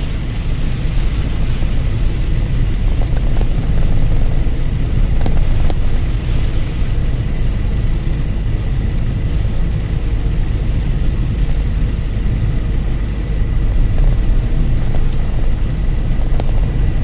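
Driving noise inside a moving vehicle's cab: a steady deep engine and road rumble with a faint, thin, steady high tone over it.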